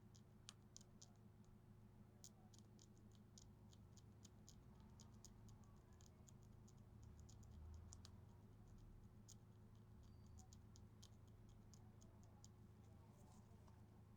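Near silence: a faint steady electrical hum with many faint, irregular, sharp clicks, which thin out near the end.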